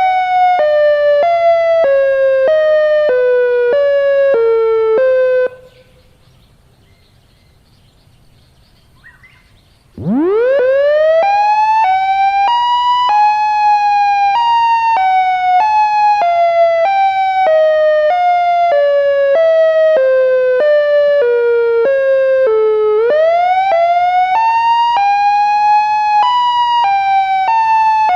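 Synthesized Federal Signal electronic siren sounding an alternate wail: two tones swap about twice a second while the overall pitch slowly slides up and down. It cuts off about five seconds in and goes almost silent for some four seconds. It then winds up from a low pitch to full pitch and carries on wailing. About 23 seconds in it sags low and swoops back up, one of its deliberate glitches.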